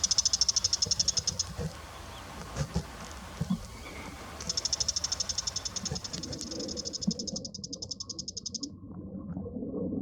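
Bull-headed shrike giving its harsh, rapid chattering call, a fast high-pitched series of about ten notes a second, in two bouts: a short one ending about a second and a half in and a longer one from about four and a half seconds to near the end.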